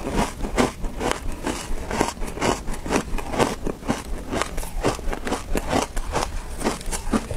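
Close-miked chewing of crushed red shaved ice: a quick, irregular run of crisp crunches, several a second.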